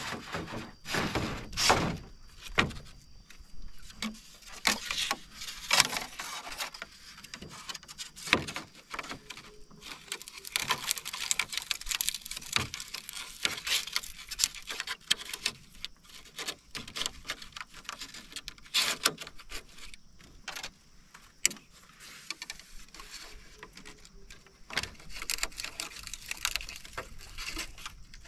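Bamboo poles knocking and clattering against each other, with scraping and rubbing, as a crosspiece is laid on a bamboo raft and lashed down with cord. The knocks come irregularly, a few of them louder.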